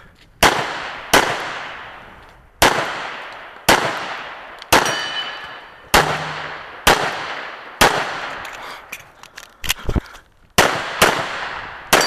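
Dan Wesson 1911 pistol in .45 ACP firing about a dozen shots, each with a short echoing tail. The shots come at roughly one a second, then quicken into a faster string near the end.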